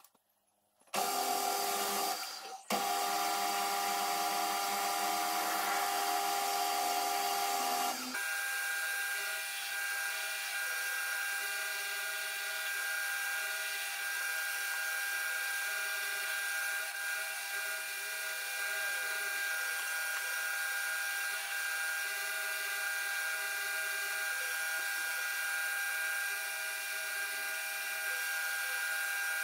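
AL960B metal lathe starting up about a second in and running with a steady high whine while the tool takes a turning cut on the spinning ring, throwing stringy swarf. The whine changes character about eight seconds in and then holds steady.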